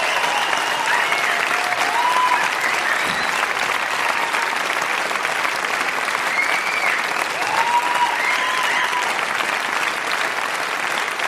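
Concert audience applauding steadily at the end of a live song, with a few cheering calls rising above the clapping.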